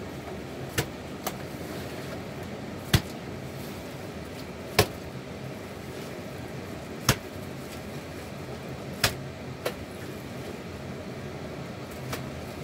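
Sharp single knocks, one every one to two and a half seconds and uneven in strength, over a steady background hiss with a faint low hum.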